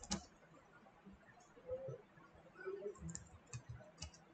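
Faint keystrokes on a computer keyboard: a click at the very start, then a few separate key taps about three seconds in as a short phrase is typed.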